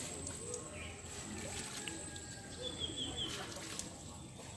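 Muddy river water splashing and sloshing around a gill net as it is hauled in beside a boat, with a short run of high bird chirps about three seconds in.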